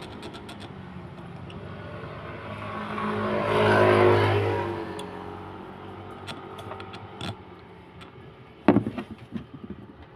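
A motor vehicle engine running, its sound rising to a peak about four seconds in and then fading, followed near the end by a few sharp knocks and clicks.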